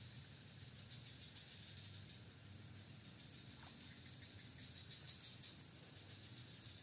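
Insects chirring as one steady, high-pitched, unbroken drone, with a faint low hum beneath.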